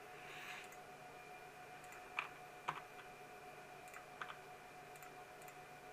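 A few sharp computer mouse clicks: two louder ones about two seconds and two and a half seconds in, and a softer pair around four seconds, over a faint steady hum.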